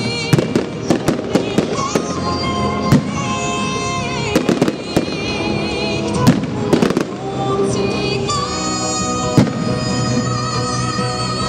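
Fireworks going off in many sharp bangs and cracks, coming thick in the first seven seconds and more sparsely after, over a song with a singer's voice playing throughout.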